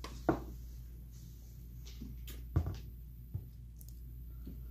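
Quiet room hum with a few light clicks and knocks, the sound of spoons and plastic cups being handled at a table.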